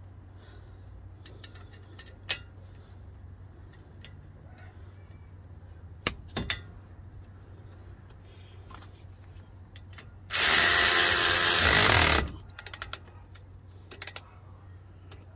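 A power wrench runs in one burst of about two seconds, driving a 17 mm bolt on the truck's brake assembly. Scattered metallic clicks and clinks of tools and parts come before and after it.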